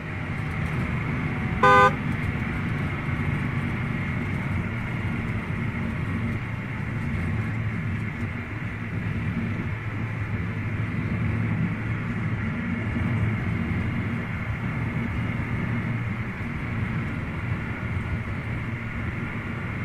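Car engine running steadily as a sound effect, with one short car horn honk about two seconds in, the loudest sound.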